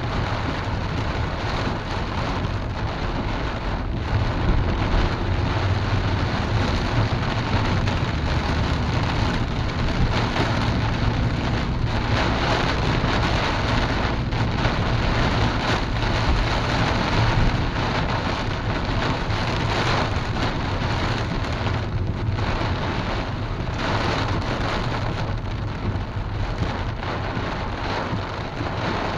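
Moderately heavy rain drumming on the car's roof and windshield, heard from inside the cabin as a dense, steady hiss, with a low steady rumble underneath from the moving car.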